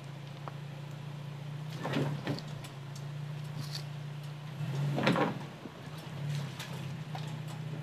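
2017 Toyota Tacoma TRD Pro's 3.5-litre V6 running low and steady as the truck crawls over rocks in a creek bed. Scraping and knocking from the tyres working over the rocks comes about two seconds in and again, loudest, about five seconds in.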